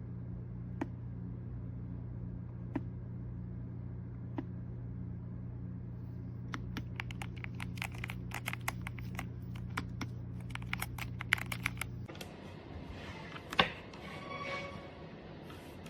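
Keystrokes on a YUNZII B75 Pro 75% gasket-mount mechanical keyboard: a few single key presses, then a quick run of typing about six seconds in, over a steady low hum.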